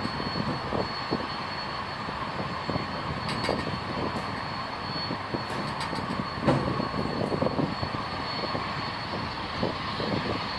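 A ShinMaywa US-2 flying boat's four turboprop engines run at high power as it speeds across the water. The steady engine noise carries a thin, constant high whine.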